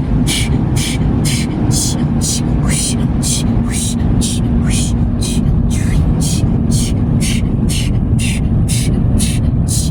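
Automatic car wash machinery heard from inside the car: a loud, steady low rumble with a hissing sweep that repeats about three times a second.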